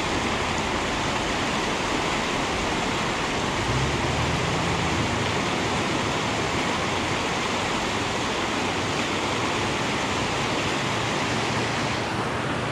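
Whitewater rapids of a mountain trout stream rushing steadily.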